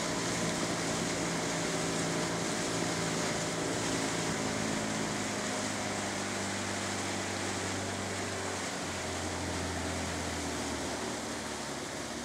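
Boat engine running steadily under a wash of water and wind noise, its note shifting slightly about four seconds in and again near nine seconds.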